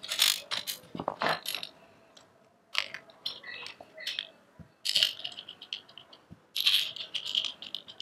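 Small metal parts clinking and rattling as a steel battery bracket, its bolts and clamps and the attached wiring harness are handled and fitted together by hand, in irregular bursts of clicks.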